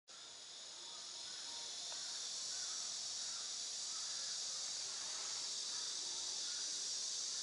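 Steady, high-pitched insect chorus, building up over the first two seconds and then holding steady, with faint scattered bird chirps beneath; the pelicans themselves make no audible sound.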